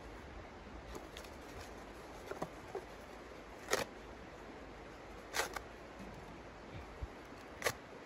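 Kindling handled in the firebox of a small steel wood stove: scattered light clicks and scrapes, with three sharper, louder scrapes just before the middle, a little after it and near the end.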